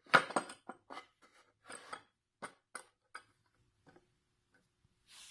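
A scatter of light clicks and knocks from small hard objects being handled, about a dozen over the first three seconds and then sparser, with a short soft hiss near the end.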